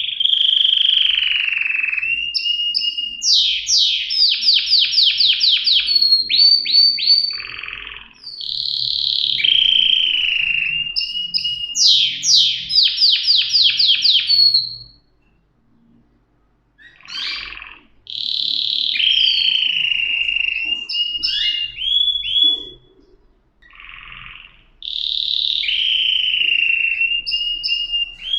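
Domestic canary singing: long held whistled notes that drop in pitch, alternating with fast trills of rapidly repeated rising sweeps, phrase after phrase, with a short pause about halfway through.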